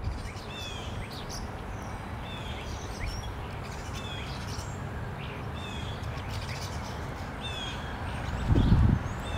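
Birds chirping repeatedly in short falling notes, over a low rumble of wind on the microphone that swells in a gust near the end.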